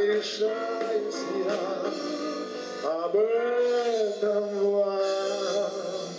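A song is performed live by a vocal-instrumental pop band: a male voice sings over instrumental backing with a steady beat. From about three seconds in, the voice holds one long, slightly wavering note.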